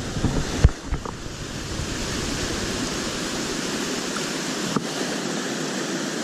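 Steady rushing of a stream flowing over stones, with a couple of sharp knocks in the first second.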